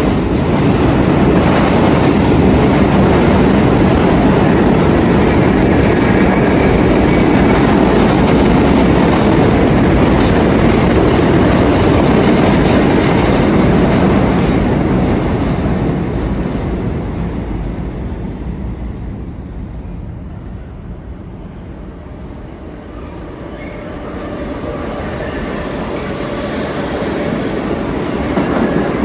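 New York City subway train running on the rails, loud for about the first fifteen seconds, then fading away and building up again near the end.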